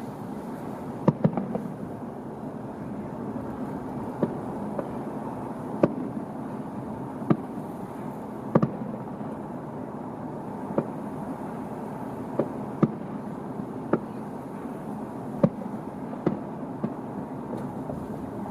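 Fireworks bursting: about a dozen sharp bangs at irregular intervals, a few close together about a second in, over a steady background noise.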